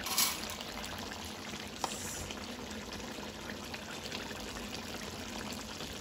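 Chicken curry simmering in a metal kadai: steady bubbling with faint crackles, a brief hiss near the start and a small click just under two seconds in.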